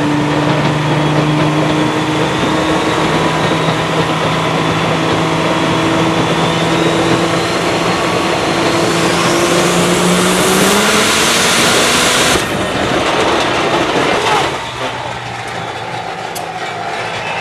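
Heavily modified 6.7-litre diesel pickup engine running at full power on a chassis dyno, with a high turbo whine that climbs steadily in pitch as the engine speed rises. About twelve seconds in, the whine cuts off suddenly, and a couple of seconds later the engine sound drops away as the engine fails and the truck catches fire.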